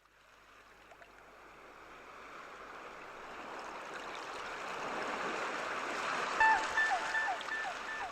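Rushing sea-surf sound fading in from silence and swelling steadily. In the last two seconds a run of short, high, falling calls rises above the wash.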